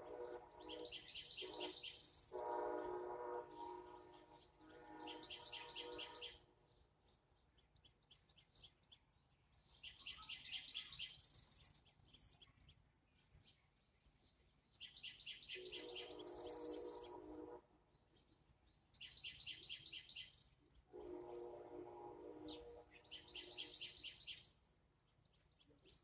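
Songbirds singing: about six short, rapid high-pitched trills a few seconds apart, several of them overlapped by lower-pitched calls.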